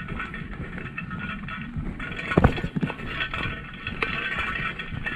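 A hiker's footsteps scraping and crunching along a trail, with a loud knock about two and a half seconds in.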